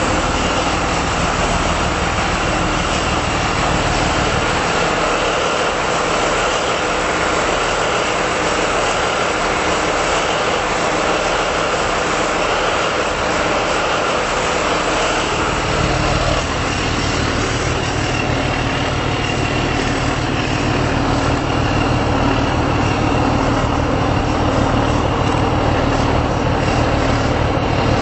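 Dredger's engine running steadily, a loud, dense machinery din heard on board. Its deep rumble weakens for about ten seconds near the start, then comes back strongly.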